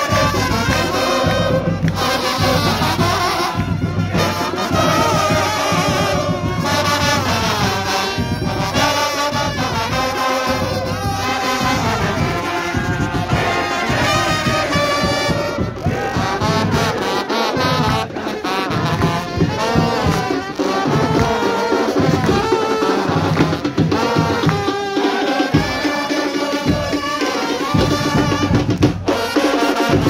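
Trumpets playing a tune over drums.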